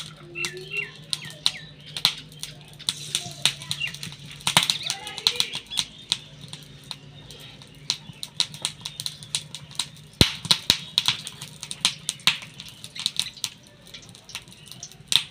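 Batter-coated taro slices frying in hot oil in an iron wok, with irregular sharp crackling pops.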